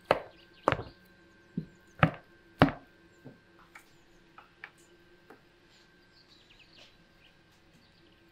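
A large kitchen knife chopping down through a baked cheese-topped dish and striking the tray beneath: five sharp chops in the first three seconds, then a few lighter taps.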